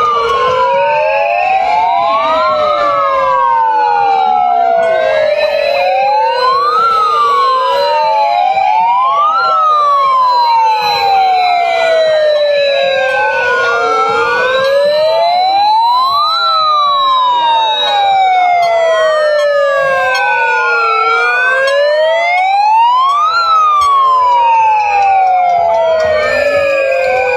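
Several sirens wailing at once, each sweeping up quickly and sliding slowly back down, overlapping and repeating every two to three seconds.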